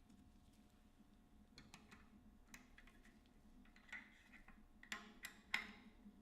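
Faint, irregular metallic clicks and light taps from a bearing puller and tools being handled in a bicycle front hub as the puller is fitted, the loudest about five and a half seconds in.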